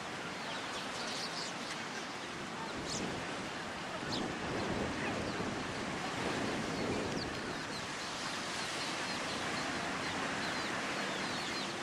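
Steady rush of ocean surf breaking on the beach, with scattered short, high-pitched bird chirps now and then.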